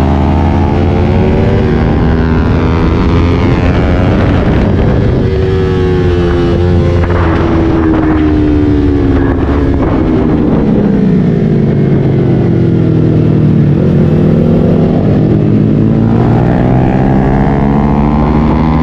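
Motorcycle engine running under way, its pitch sliding slowly down and then back up as the revs change over several seconds, over a steady low rumble.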